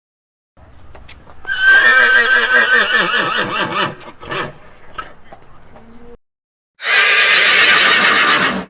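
A horse whinnying: a long, quavering neigh that falls in pitch and tails off, then a second, harsher horse call about seven seconds in that cuts off suddenly.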